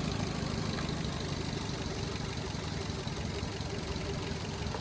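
Maruti Suzuki Dzire's four-cylinder petrol engine idling roughly and unevenly, with a misfire on cylinder 2 (fault P0302) that shakes the engine.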